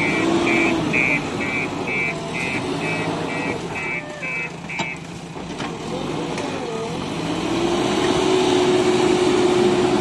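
JCB backhoe loader's diesel engine running and revving up and down as the loader bucket works the soil, with its reversing alarm beeping about three times a second until about halfway through. In the last few seconds the engine holds a steady high pitch.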